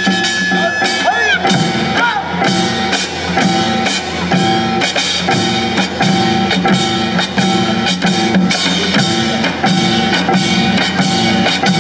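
Live Korean traditional (gugak) ensemble music, with drums and percussion keeping a steady rhythm. A long held high note bends away about a second in.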